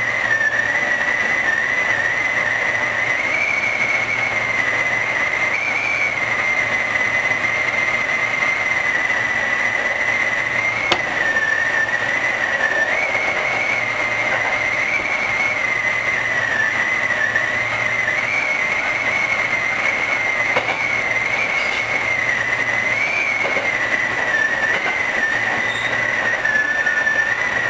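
Running sound of a Hankyu 3000-series electric train heard from behind the driver's cab while it is under way. A steady high whine wavers slightly in pitch over the noise, and a single sharp click comes about eleven seconds in.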